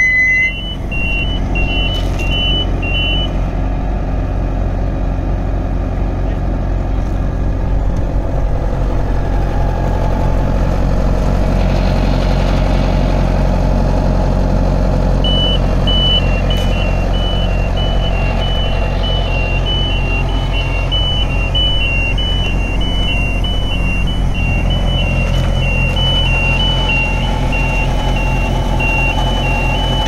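Diesel engine of a Bomag BF300P asphalt paver running steadily. A high two-note electronic beeping sounds for the first few seconds and again from about halfway through.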